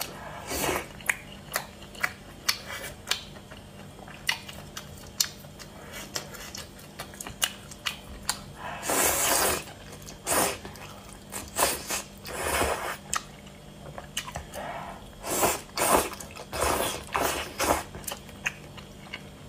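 Close-up eating sounds of spicy malatang noodles: wet chewing and smacking clicks throughout, with several longer slurps of noodles in the second half.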